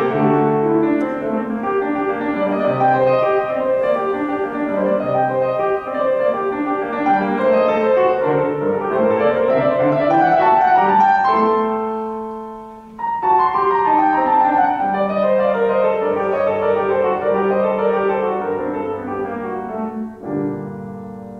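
Yamaha grand piano played solo in a fast classical passage. About halfway through, a held chord dies away before the playing resumes, and near the end a chord is struck and left to ring.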